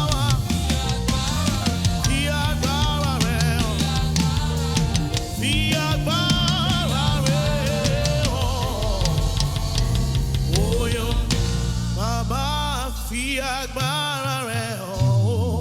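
Live gospel worship music: a singer's voice with wide vibrato over a band with drum kit and bass. The bass drops out about two seconds before the end.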